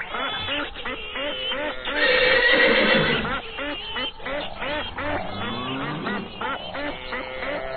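Farm animals calling over one another: many short rising-and-falling calls, with a louder stretch about two seconds in.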